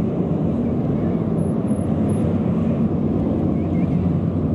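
Steady, low jet engine rumble from a formation of six twin-engine Sukhoi fighter jets passing overhead.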